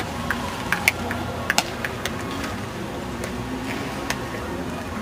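Outdoor ballfield ambience: a steady background hiss with scattered small sharp clicks and taps, a few close together about a second and a half in.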